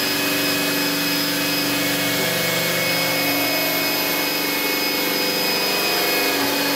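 Hammer drill running steadily, its bit boring into a cardboard box as the hole begins to open.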